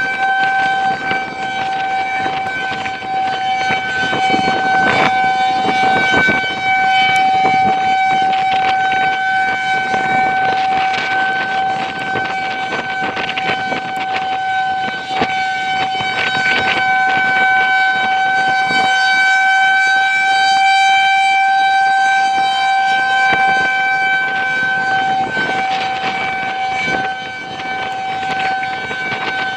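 Federal Signal 2001-130 electromechanical outdoor warning siren sounding a single steady tone at test. Gusts of wind buffet the microphone across it.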